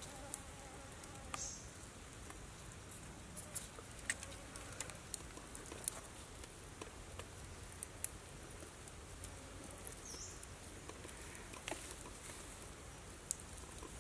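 Faint scattered clicks and small rustles of hands working wire and lemongrass into a pig carcass's skin, over a quiet forest background, with a short high chirp about ten seconds in.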